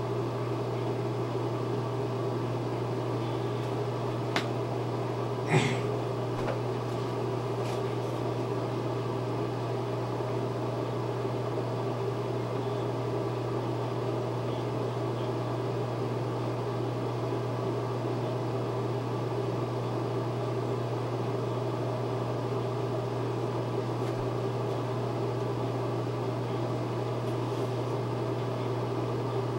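Steady machine hum, like a fan running, with a single click about four seconds in and a brief sharper sound a second later.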